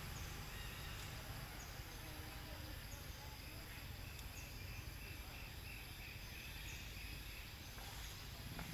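Quiet outdoor ambience with a steady background hiss. Short high chirps recur at uneven intervals about once a second, with a faint insect buzz through the middle.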